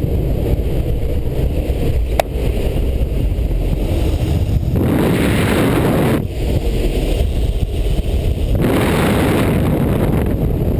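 Light aircraft's engine and wind rushing in through the open door of a jump plane: a loud, steady rush. Two stronger gusts of wind noise a second or two long, about halfway through and near the end, and a single sharp click about two seconds in.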